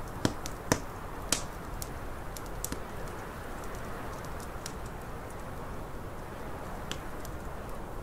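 Wood fire crackling with sharp pops, three loud ones in the first second and a half and scattered fainter ones after, over a steady rushing of snowstorm wind.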